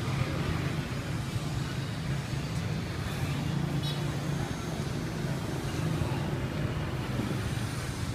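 Street traffic noise: a steady low rumble of passing vehicles.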